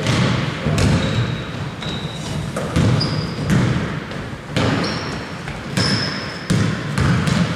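Basketball bouncing on an indoor court during play, about once a second, with several short high squeaks of players' shoes.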